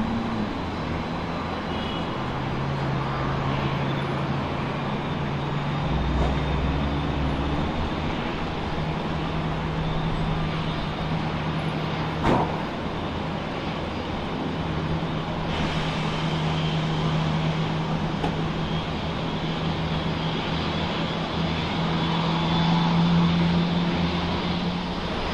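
Steady engine rumble with a low droning hum throughout, and a single sharp click about halfway through.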